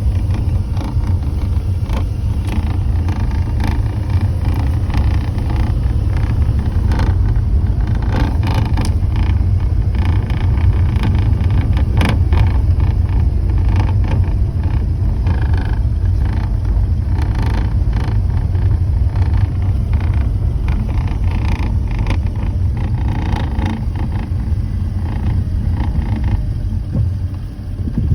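Low, steady vehicle rumble from a Porsche 987.2 on the move, with irregular light rattling clicks from the rear driver's side. The owner traces the rattle to a loose metal panel at the front of the engine bay.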